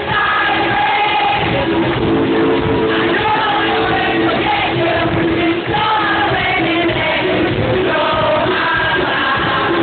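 Live pop-rock band playing with a lead vocalist singing, heard from among the concert audience in a large hall.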